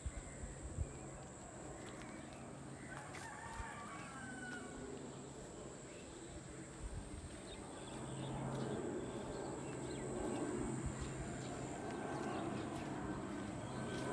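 A rooster crowing a few seconds in, over a hazy outdoor background with a low hum that grows louder in the second half.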